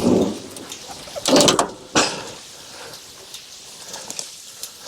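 Three short scraping rushes in the first two and a half seconds, then a few light clicks: hands working at the sawdust discharge of a Wood-Mizer LX25 sawmill, checking for backed-up sawdust.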